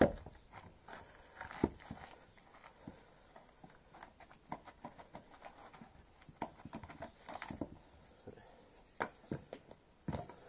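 Small axe chopping at a log on a chopping block, chipping a piece off the side: a sharp knock at the start, then a string of lighter taps and clicks, with several harder chops in the second half.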